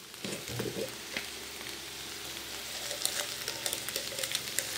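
Capsicum, onion and tomato sizzling steadily in a steel kadai, with a fine crackle running through it.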